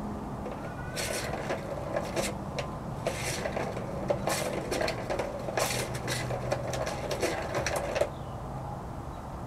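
A kitten clawing and pawing at a round plastic cat scratcher with a cardboard scratch pad: a run of irregular rasping scrapes that starts about a second in and stops about eight seconds in.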